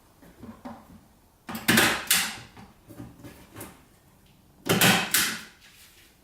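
Hand staple gun firing staples through tape into cardboard: two loud clacks about three seconds apart, with lighter handling clicks between.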